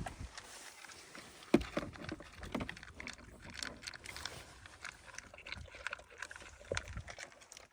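Dogs eating from their bowls: an irregular run of small clicks and knocks, with a sharper knock about one and a half seconds in.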